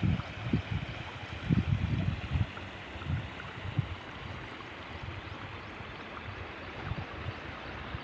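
Steady rush of water running past a stone culvert, with irregular low rumbles in the first couple of seconds that then die down.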